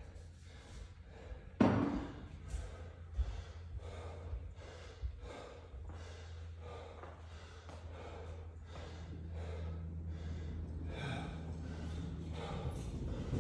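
A man breathing hard in quick, regular breaths while recovering between sets of a hard workout, with one sharp thud about a second and a half in. A steady low hum runs underneath.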